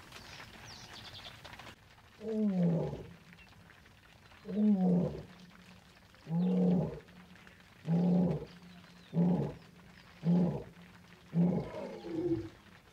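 African lions roaring. A bout of deep calls starts about two seconds in: the first roars are long, then they shorten into grunts coming closer together, about seven in all.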